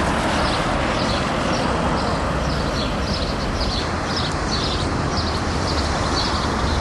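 Street ambience: a steady rush of traffic noise with small birds chirping repeatedly over it.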